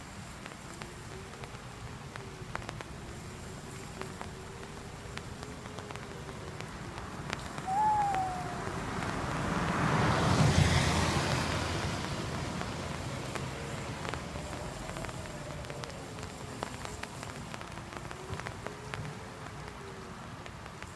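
Eerie low moan that wavers slowly up and down in pitch, typical of a Halloween display's ghost sound effects. A short falling cry comes about eight seconds in, and a rush of noise swells and fades around ten to eleven seconds.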